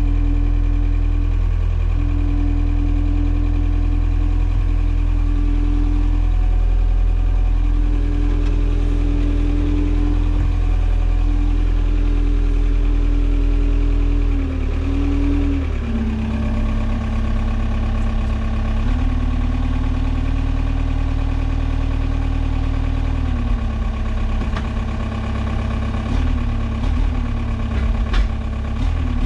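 Forklift running steadily: a deep hum with a held whine over it that drops to a lower pitch about halfway through and wavers near the end as the truck is driven and manoeuvred.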